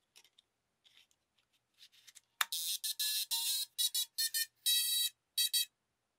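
HISINGY Stargazer tiny-whoop drone powering up as its battery is connected: a few light clicks of handling and the plug, then the motors sound the ESC start-up beeps, a quick run of about seven short high electronic beeps. The beeps signal that the drone's speed controllers have powered on and initialised.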